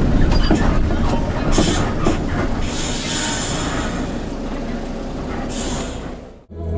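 Engine and road rumble inside a front-engined bus on the move, with a few brief hissing bursts; it cuts off sharply near the end.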